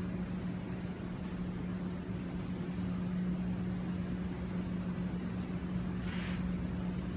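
A steady low mechanical hum holding one pitch, with a brief soft rustle about six seconds in.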